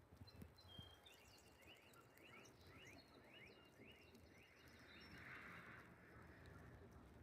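A small songbird singing faintly: a quick series of short, sharp chirps lasting a few seconds, over quiet outdoor background noise.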